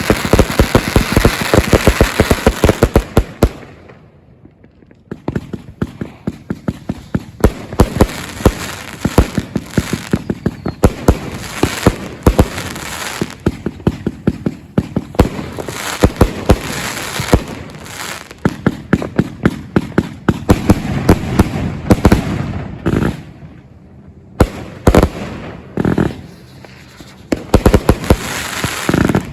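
A 219-shot Mt. Westmore fireworks cake firing shot after shot in quick runs, the bangs laid over a constant crackle. It goes almost quiet for about a second around four seconds in and dips again near the end before firing on.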